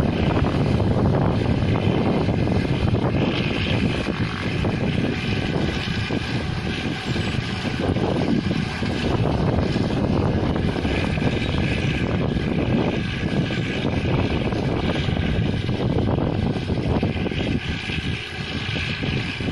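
Rice combine harvester running steadily while cutting paddy: a continuous, even drone of engine and machinery.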